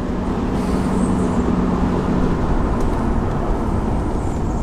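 A car driving along a road, heard from inside: steady engine hum and tyre rumble, the engine's hum dropping away about halfway through.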